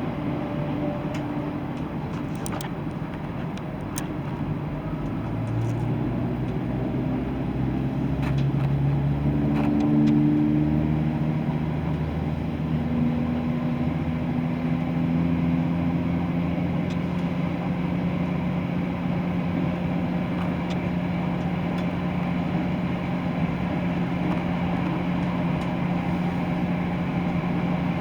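Class 170 Turbostar diesel multiple unit's underfloor MTU diesel engine and Voith hydraulic transmission howling under power as the train gathers speed. The pitch climbs from about five seconds in to a peak around ten seconds, then holds as a steady howl over the rumble of the wheels.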